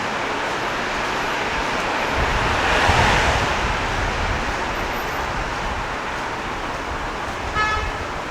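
City street traffic noise, with a vehicle passing close and swelling loudest about three seconds in. Near the end comes a brief high-pitched tone.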